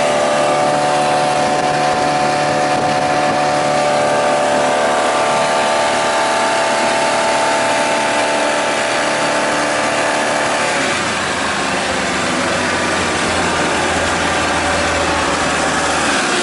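Newly installed Mercruiser 140 hp boat engine running steadily. About two-thirds of the way through its higher whine fades and a lower hum takes over.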